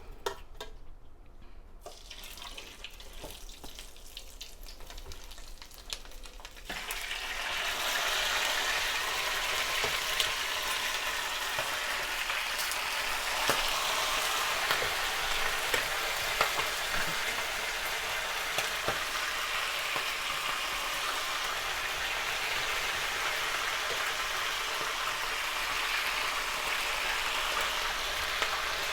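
Pieces of pre-boiled chicken frying in hot oil. After a few quieter seconds with small knocks, a loud sizzle starts suddenly about a quarter of the way in and then holds steady, with scattered pops and crackles.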